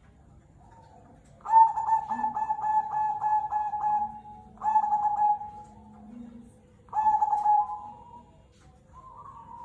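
Zebra dove (perkutut) cooing: a long phrase of rapid pulsed coos lasting about two and a half seconds, then two shorter coos, with softer cooing near the end.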